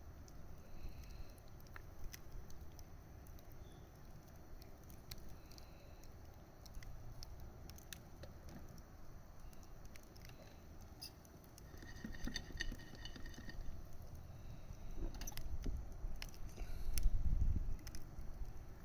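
Wood fire (bonfire) crackling, with scattered sharp pops and snaps over a low, uneven rumble that swells near the end. A brief high whistling tone comes about twelve seconds in.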